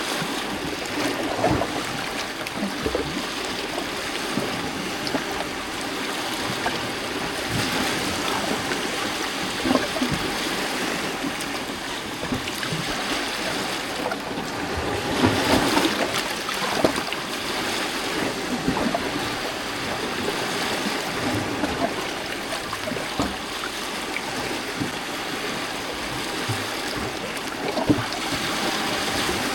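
Small lake waves lapping and splashing against a rocky shore: a steady wash of water broken by small irregular splashes, a little louder about halfway through.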